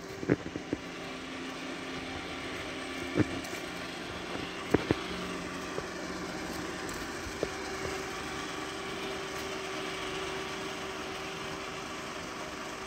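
A vehicle engine running steadily at idle, with a few sharp knocks over it, the loudest about three seconds in and again near five seconds.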